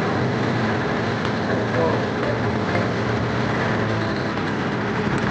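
Fishing boat's engine running at a steady speed under way: a constant low drone mixed with a dense rush of noise.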